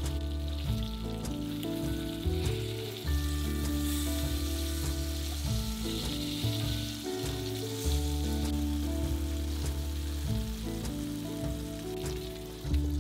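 Pieces of marinated carp sizzling in hot oil in a frying pan as they are turned with a fork, a steady hiss under background music.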